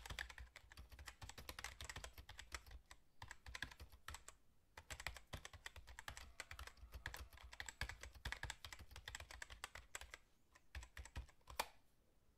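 Faint typing on a computer keyboard: rapid, irregular clicks with a few short pauses, stopping shortly before the end.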